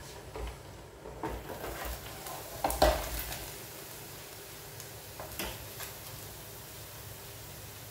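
Electric deep fryer's metal mesh basket and lid clattering as they are handled and lowered, a few knocks with the loudest about three seconds in, then hot oil sizzling steadily under the closed lid.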